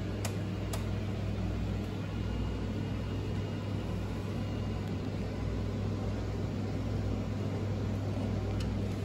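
Steady low background hum with an even hiss over it, and two faint light clicks in the first second.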